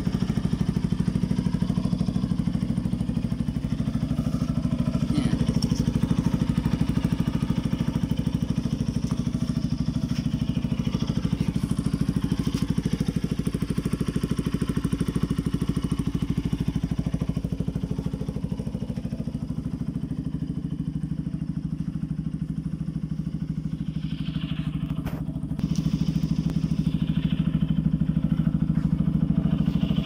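Bajaj Pulsar RS200 single-cylinder four-stroke engine idling steadily through an aftermarket Akrapovic slip-on muffler. It runs quieter for a stretch after the middle and comes back louder about 25 seconds in.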